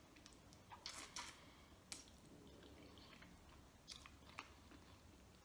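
A person chewing a mouthful of stewed chicken, soft and wet, with scattered sharp mouth clicks, the loudest about a second in.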